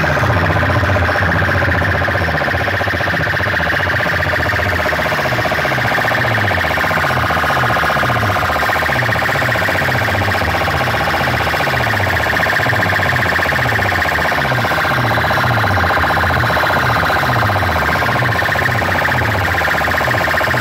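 Towering DJ speaker stacks blasting a loud, distorted siren-like electronic track at full volume. A deep bass tone sweeps downward over and over, about twice a second, under a steady high wail.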